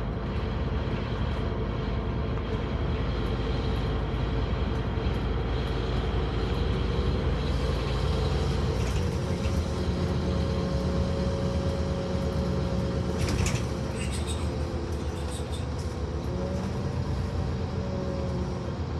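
Scania N230UD OmniCity double-decker bus on the move, heard from the upper deck: the diesel engine and drivetrain run with a steady drone, its pitch shifting about halfway through and again near the end. A short sharp knock or clatter about thirteen seconds in.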